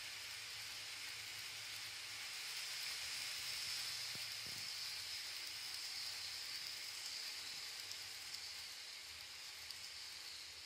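Model railway container freight wagons rolling past on the track: a steady, fine rattling hiss of small wheels on rail, a little louder a few seconds in and easing off near the end, with a few faint clicks near the end.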